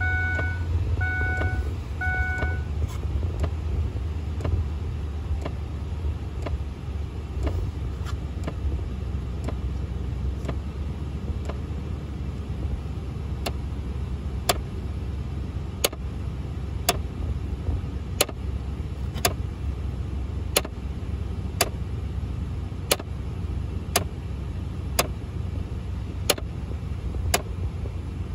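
Repeated popping clicks from behind the dash of a 2002–2005 Ford Explorer's heater system, faint at first, then sharp and regular at about one a second from about halfway through, over a steady low hum. The popping is the symptom the owner takes for a failing heater blend door actuator. A few short electronic chime beeps sound in the first couple of seconds.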